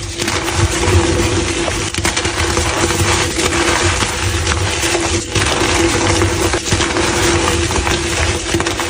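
Blocks of gym chalk being crushed and crumbled, a dense, continuous crunchy crackle over a steady low hum.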